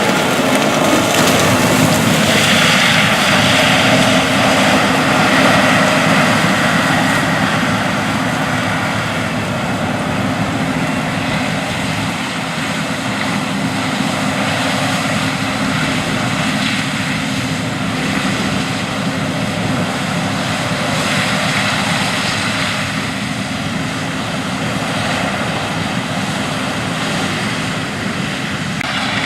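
John Deere S690 combine harvester running steadily as it harvests corn with its 16-row corn head: a loud, even engine and machinery drone.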